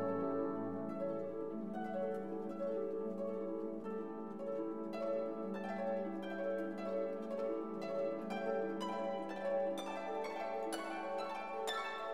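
Background instrumental music: a stream of short plucked notes that ring and fade, over a held low note.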